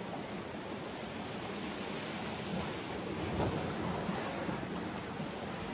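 Sea surf washing against a rocky shore, a steady rushing, with wind on the microphone.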